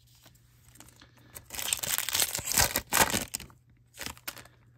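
Foil trading-card pack wrapper crinkling and tearing for about two seconds, starting about a second and a half in, then a few light clicks of cards being handled.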